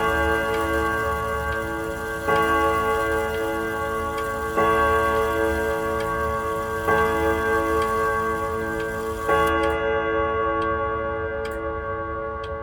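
Howard Miller 610-311 grandfather clock striking the hour: five even strokes about two and a quarter seconds apart, each ringing on as a chord of several tones that slowly fades, with the clock's ticking underneath. The last stroke rings out over the closing seconds.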